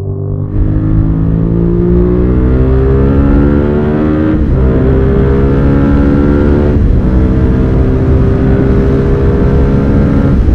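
Suzuki SV650's V-twin engine pulling hard under acceleration, its pitch climbing through the revs, with two quick upshifts, about four and seven seconds in, each dropping the pitch before it climbs again.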